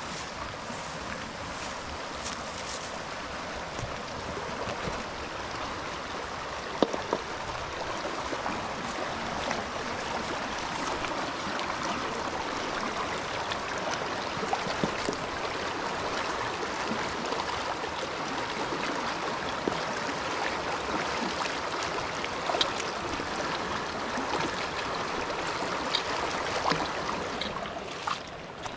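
Fast-flowing stream rushing steadily, with a few short sharp knocks and splashes from hands working chopped leeks in a metal basin held in the water.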